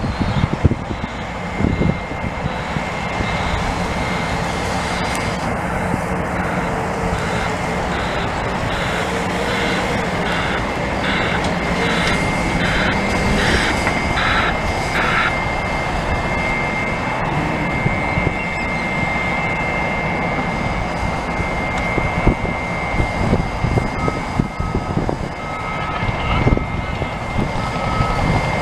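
Caterpillar D6T crawler dozer's diesel engine running steadily under load as it pushes heavy clay. A reversing alarm beeps about twice a second for several seconds near the middle.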